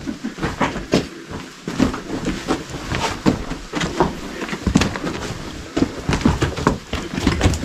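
Footsteps crunching and scuffing over loose rock rubble, with stones knocking and clattering underfoot at an irregular pace.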